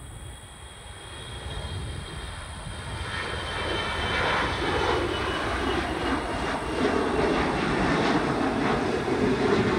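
Airbus A321-211 airliner's twin CFM56 jet engines at takeoff thrust as it lifts off and climbs out. The engine noise swells steadily over the first five seconds, then holds loud.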